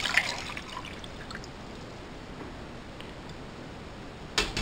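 Tap water pouring from a glass measuring cup into an anodized aluminium cook pot, the splash tailing off within the first half second. About four seconds in comes a single sharp knock as the glass measuring cup is set down on the counter.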